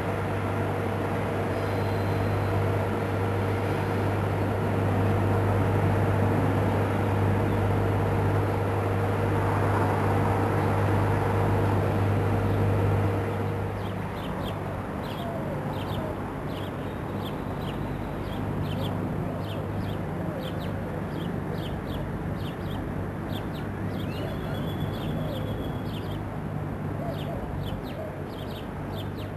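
A commuter train's diesel locomotive running steadily, a low hum with a steady tone above it. About halfway through it gives way to birds calling in many short, quick calls over a fainter low rumble from the approaching train.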